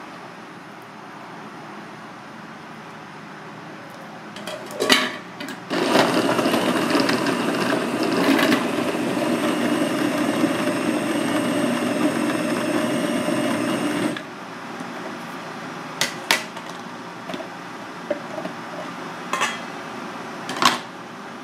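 Small electric food processor running steadily for about eight seconds, mincing raw batfish fillets, then cutting off suddenly. A couple of knocks come before it starts, and a few sharp knocks and scrapes follow as the minced fish is scraped out of the processor bowl with a spatula into a steel bowl.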